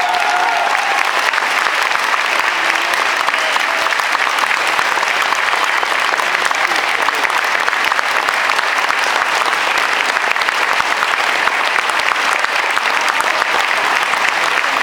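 Large audience clapping steadily and continuously. The last held note of the music dies away about a second in.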